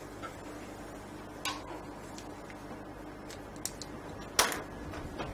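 Quiet room tone with a steady faint hum, broken by a few light clicks and, about four and a half seconds in, one louder short knock.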